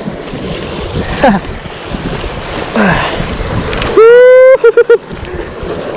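Sea waves washing on the shore and wind on the microphone. About four seconds in comes a loud held cry from a man, then three short yelps at the same pitch.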